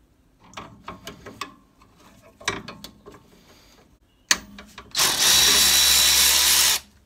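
Handling clicks and knocks of tools on the rear axle, then a power tool on a long socket extension running steadily for about two seconds near the end and stopping abruptly.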